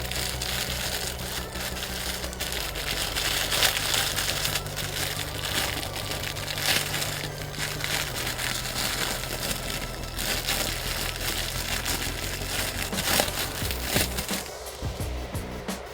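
Plastic packaging crinkling and crackling with many quick crackles as it is handled, over a low steady hum. The crackling thins out near the end.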